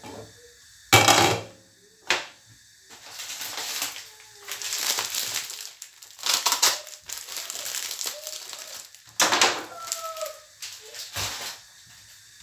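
Glass pan lid lifted off a frying pan and set down with a sharp clatter about a second in, followed by several bursts of crinkling, rustling handling noise.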